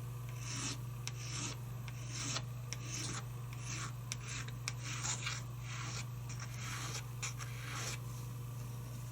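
Hand sanding of a tobacco pipe stem's rebuilt bit and button, made of super glue and carbon: repeated short rasping rubs, about two to three a second, over a steady low hum.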